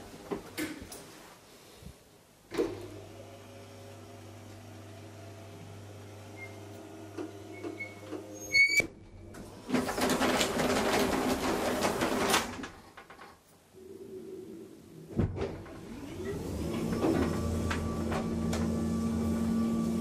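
Motala Hissar elevator running: after a thump the drive hums steadily, a brief high beep sounds, and the automatic door mechanism runs for about three seconds. About fifteen seconds in the drive starts up again with a louder hum.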